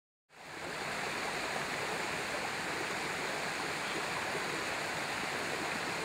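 Water rushing through the outlet of an old concrete dam, a steady rush of white water that fades in quickly a fraction of a second in, then holds even.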